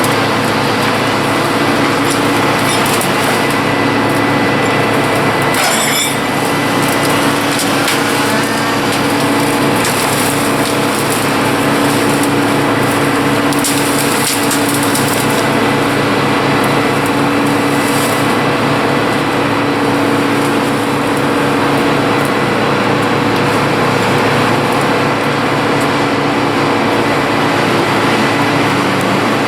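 Engine-driven tree-cleanup machinery running steadily while working through wood from storm-felled trees, with a sharp crack of splintering wood about six seconds in.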